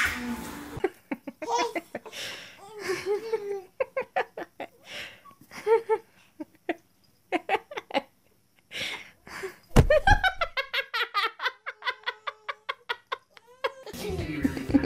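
People laughing and giggling in repeated short bursts, with a held tone near the end.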